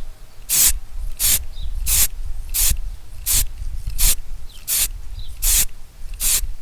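Aerosol can of grey primer sprayed in short, quick puffs: about nine sharp hisses, roughly three every two seconds, laying a light dusting coat. A low wind rumble on the microphone runs underneath.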